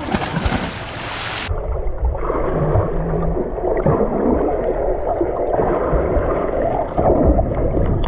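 Swimming-pool water splashing and gurgling, turning dull and muffled about a second and a half in.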